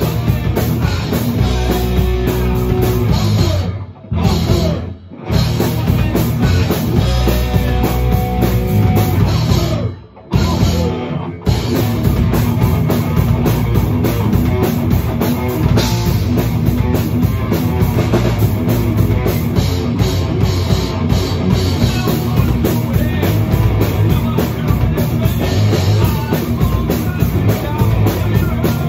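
Loud heavy rock music with a full drum kit and guitars, briefly cutting out twice, about four and ten seconds in.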